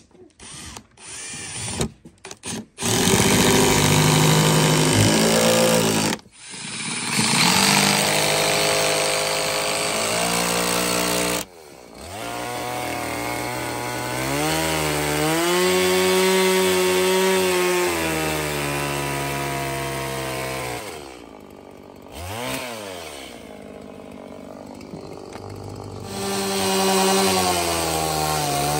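Stihl chainsaw cutting into a peeled log rail, its engine pitch sagging and recovering as the chain bites the wood. It drops back to idle for a few seconds about two-thirds through, with one quick rev, then opens up again near the end. A few short bursts of noise come before the saw settles in.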